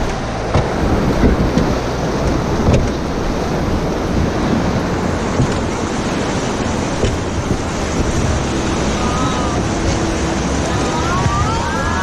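White-water river rapids rushing and splashing around an inflatable raft in a steady loud roar. Near the end, people shout out briefly over the water.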